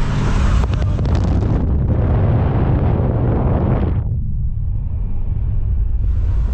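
Steady low rumble of a truck driving, with road and wind noise; the higher hiss drops away abruptly about four seconds in.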